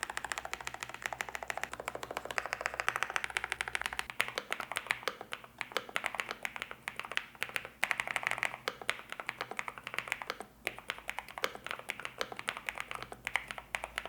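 Fast, continuous typing on a NuPhy Node100 full-size low-profile mechanical keyboard with Gateron red Nano linear switches: a quick, irregular run of soft, clean keystroke clicks.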